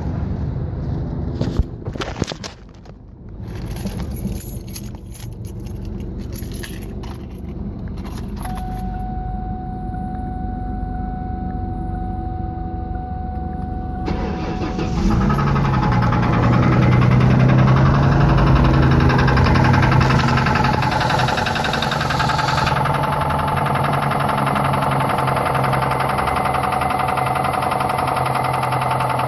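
Clicks and handling sounds, then a steady electronic tone for several seconds, then the 2001 Mustang's 3.8-litre V6 starting about halfway through and idling. The owner reports that the engine developed a knock after running very low on oil.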